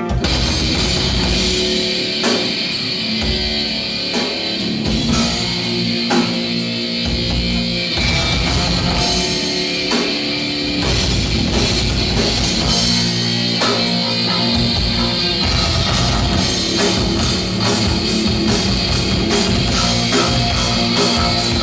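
Heavy metal played loud by a band with distorted electric guitars, bass and a drum kit; the full band comes in at once right at the start, after a lighter chiming part.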